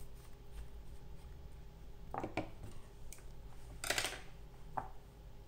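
A few short taps and scrapes of painting materials being handled, such as a brush against paint pots or the palette. The loudest is about four seconds in, over a faint steady hum.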